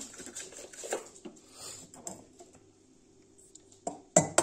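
An egg being knocked against the rim of a stainless steel mixing bowl to crack it, with a few sharp, loud knocks near the end. Before that, faint handling noise and a single click.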